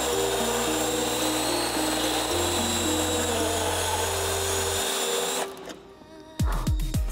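Cordless DeWalt right-angle drill driving a 3/4-inch hole saw through sheet-steel firewall, a steady whir and grind that stops abruptly about five seconds in. Background music plays under it, and a kick-drum beat comes in near the end.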